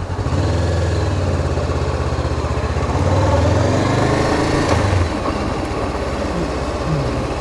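2014 Honda CBR500's 471 cc parallel-twin engine pulling away at low speed. The engine note rises about a third of a second in and drops back about five seconds in as the throttle is eased off.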